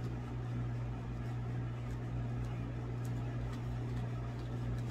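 Steady low hum with a faint hiss in a small room, with a few very faint ticks.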